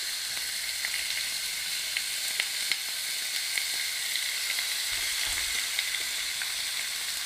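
Slices of wild boar shoulder loin sizzling in a hot pan greased with melted boar back fat, a steady hiss with many small pops and crackles as the meat sears.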